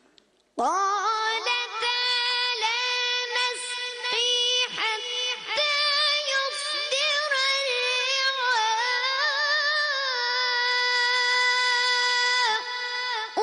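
A boy's voice reciting the Quran in a slow, melodic chanted style, entering about half a second in with long held notes and ornamented turns in pitch.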